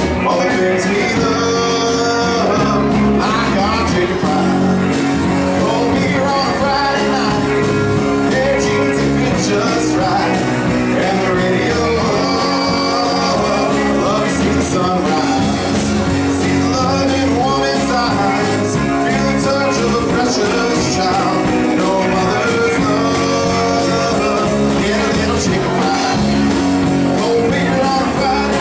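Live band playing a country song: a man singing into a microphone over electric guitar, drums and keyboard, amplified in a large room.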